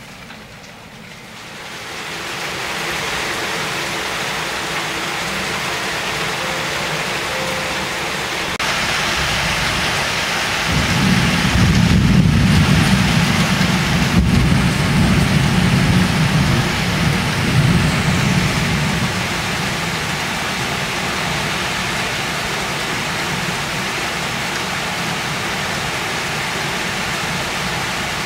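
Heavy rain falling on leaves, a steady hiss that swells over the first few seconds. About ten seconds in, a deep low rumble comes up under it, lasts around eight seconds and fades.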